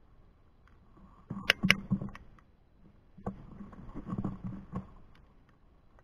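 Sharp knocks, thumps and scrapes right by the microphone in two bunches: a loud double knock about one and a half seconds in, then a scuffle of knocks and scraping from about three to five seconds in.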